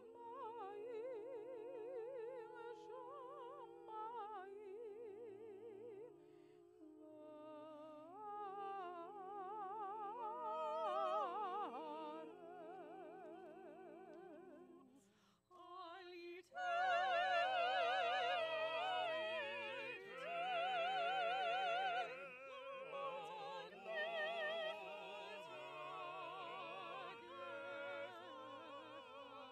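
Slow solo singing with strong vibrato over held accompaniment chords, a liturgical song. After a short break about fifteen seconds in, the voice comes back louder and higher.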